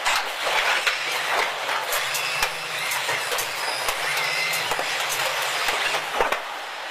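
Robotic body-framing line working on a car body: a hissing mechanical din full of sharp clicks and knocks of clamps and fixtures. A low motor hum joins about two seconds in and drops out near the end.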